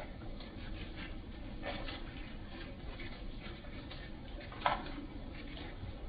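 Steady low outdoor rumble with a few faint ticks, and one sharper tick about four and a half seconds in.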